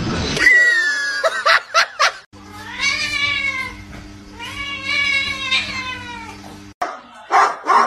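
A cat meowing in two long drawn-out calls, each rising and then falling in pitch, over a steady low hum that cuts off suddenly. Before them come a short falling cry and a few sharp clicks.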